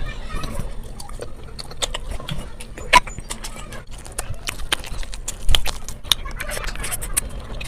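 Close-miked eating sounds: a rapid run of sharp crunching and wet chewing clicks, with two louder crunches about three seconds and five and a half seconds in.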